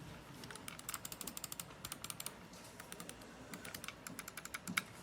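Typing on a computer keyboard: quick, uneven runs of faint key clicks, in two bursts with a short pause between them.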